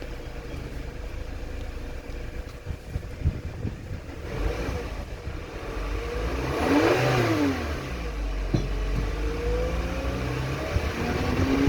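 2013 VW Tiguan's 2.0-litre turbocharged four-cylinder petrol engine (code CCZ), heard at the exhaust. It idles, is revved once up and back down, then its revs climb slowly again near the end. The engine sounds healthy.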